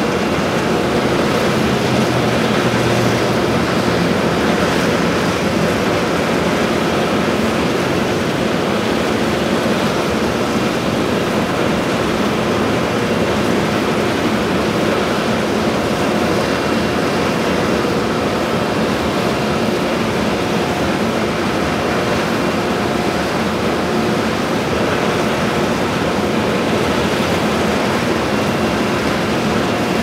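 Industrial exhaust fan running steadily: a loud, even rush of air with a low rumble and faint steady hum tones.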